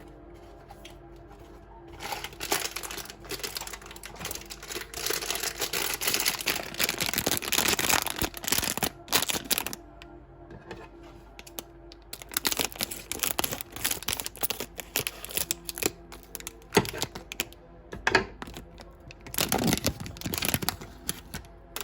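A toy blind box and its wrapping being opened by hand: rapid crackling and rustling of packaging in three bouts.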